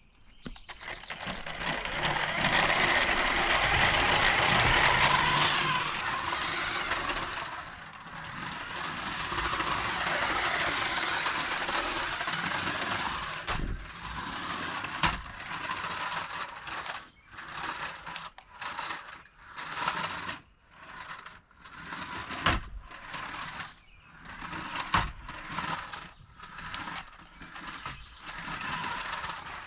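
DEERC DE67 toy RC crawler driving, its small electric motor and gearbox whirring with its tyres rolling on the ground. The first stretches run long; after that it goes in short stop-start bursts, with a few sharp clicks and knocks.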